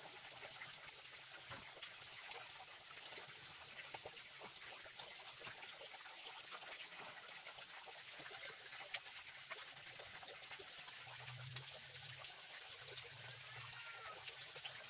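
Faint knife cutting through fresh peeled bamboo shoots on a wooden chopping block: soft, irregular ticks over a steady background hiss, with one sharper tick about nine seconds in.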